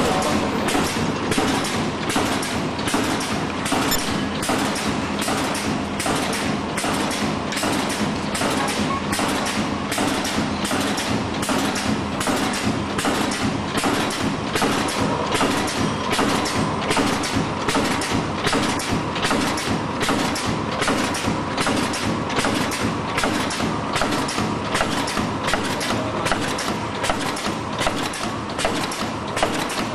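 Multi-track four-side-seal sachet packing machine running: a steady mechanical clatter with an even, regular stroke a little more than once a second over a constant hum.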